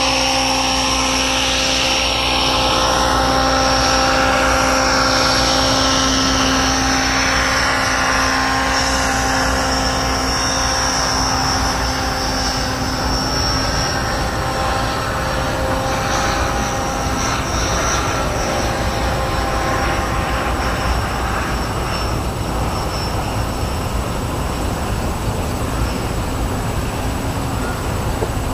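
Electric RC helicopter's rotor and motor whine heard from the ground as it climbs and flies away. The whine is steady at first, then fades into a broader hum over the second half.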